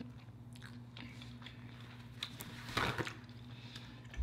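Close-miked chewing of a crunchy deep-fried taco: soft crunches and mouth sounds, with a brief louder crackle a little under three seconds in, over a low steady hum.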